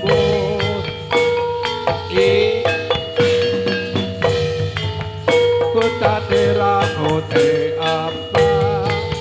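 Javanese gamelan music for a gedruk dance: metallophones ringing over drums, with a strong beat about once a second.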